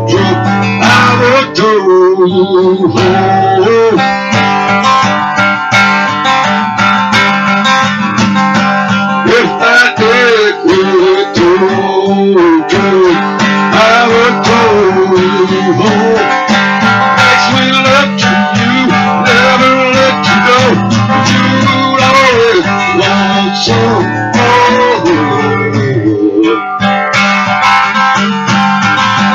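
Acoustic guitar strummed steadily, with a man singing over it in phrases that come and go.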